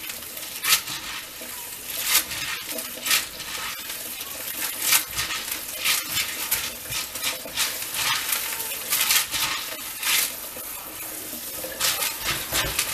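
Pinto beans being stirred and rubbed by hand in a plastic colander as they are rinsed in the sink: irregular rattling and clicking of the beans against each other and the colander, over a steady hiss.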